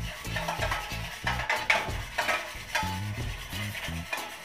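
A metal utensil beating a thin egg-and-spice marinade in a stainless steel bowl, sloshing and clicking against the bowl's side in quick irregular strokes. Background music with a low bass line plays underneath.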